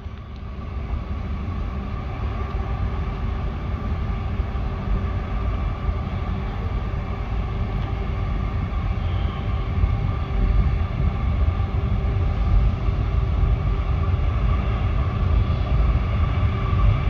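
Norfolk Southern freight train approaching, its lead diesel locomotive's engine running with a steady low rumble that grows louder as it nears, most of all from about halfway through.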